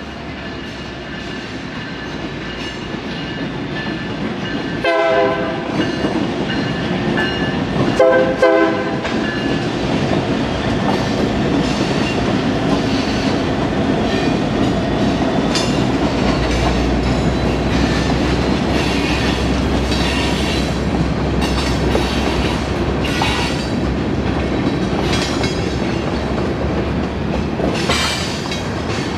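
Light rail train sounding two short horn blasts about three seconds apart, then running past with a rising rumble and repeated clacks of its wheels over the rail joints.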